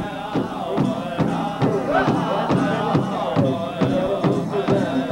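Powwow drum group singing an intertribal song over a steady, even drumbeat of about two and a half strokes a second.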